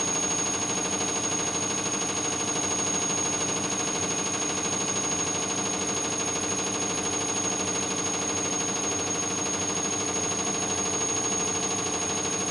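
Gorenje front-loading washing machine in its final spin, the drum turning at a steady high speed: a constant high whine over the steady hum of the motor and drum.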